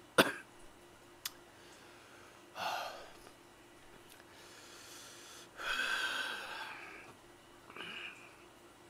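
A man's heavy breathing: a short noisy breath about two and a half seconds in, a longer one lasting over a second around six seconds in, and a brief one near the end. He is reacting to spicy Cheongyang-chili broth that went down his windpipe.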